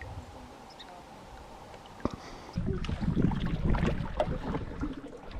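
Canoe being paddled: water splashing and the paddles and hull knocking, growing louder about two and a half seconds in.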